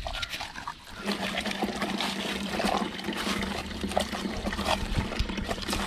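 Water trickling and splashing with small clicks as gutted tilapia are rubbed and washed by hand with rock salt. A steady low hum starts about a second in.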